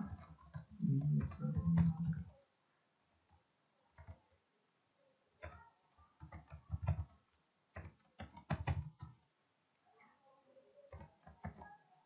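Computer keyboard typing in short, irregular bursts of keystrokes with pauses between them, the densest run in the first couple of seconds.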